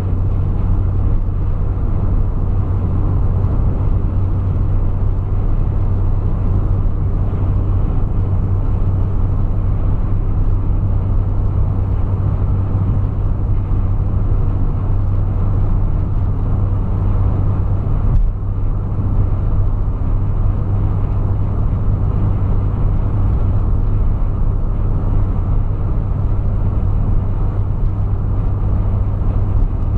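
Steady engine and tyre noise inside a car's cabin cruising at highway speed: a constant low drone with road rumble. One brief bump about 18 seconds in.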